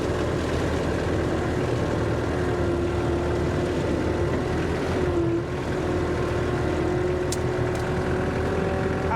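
An engine running steadily, with a steady whine over a low drone that dips slightly in pitch about five seconds in.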